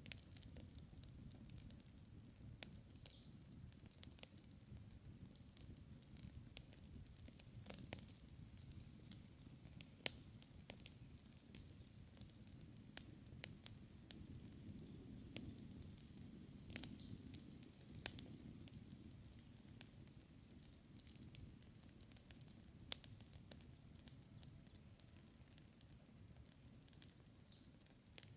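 Wood campfire burning: a low steady rumble of flame with irregular sharp crackles and pops from the burning wood, a few of them standing out louder than the rest.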